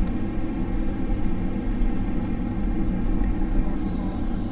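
Boeing 767 taxiing, heard from inside the passenger cabin: a steady, low rumble of the jet engines at taxi power.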